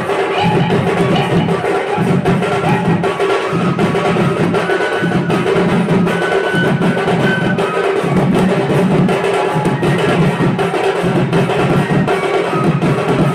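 Live Sambalpuri folk dance music led by dhol barrel drums beating a steady, pulsing rhythm, with a melody line of short held notes above the drums.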